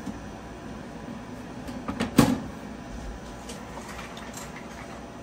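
Lid of a home-built LDMOS HF power amplifier's case being put back on. There is a click at the start, then a cluster of knocks about two seconds in, the loudest part, and a few light taps after.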